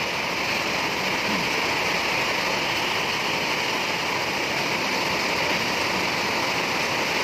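Heavy downpour: rain falling hard in a steady, even hiss.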